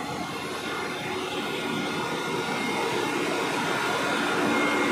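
The onboard engines and machinery of a railway rail grinding machine running in a steady mechanical drone with a few faint held tones, slowly growing louder.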